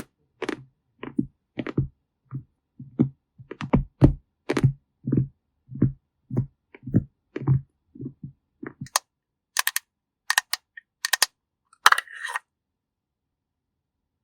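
A series of short, soft taps with a dull low thud, about two a second, followed by a few sharper, brighter clicks near the end.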